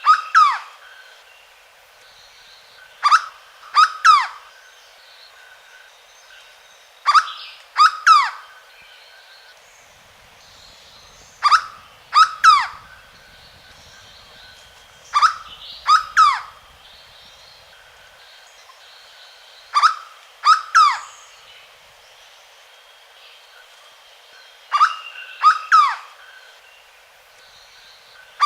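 Hooded berryeater (corocoxó) singing: a loud phrase of two or three sharply falling notes, repeated about every four seconds.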